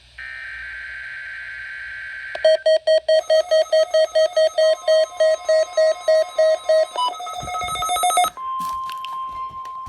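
NOAA Weather Radio weekly test signalling: a buzzy digital data burst (the SAME header), then loud electronic alert beeps about three a second, shifting pitch about seven seconds in, then, from about eight and a half seconds in, the steady single-pitch 1050 Hz warning alarm tone.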